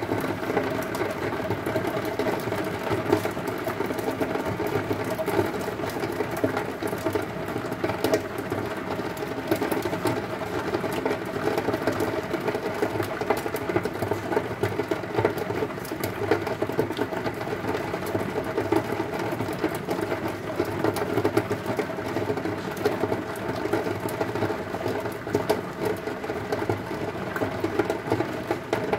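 Heavy rain hitting a window: a dense, steady rush of countless small drop impacts that never lets up.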